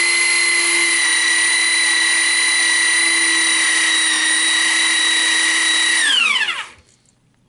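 Central Machinery portable electric pipe threader running forward with a steady high whine while its die cuts threads on a pipe. About six seconds in the trigger is released and the motor winds down, its whine falling in pitch until it stops.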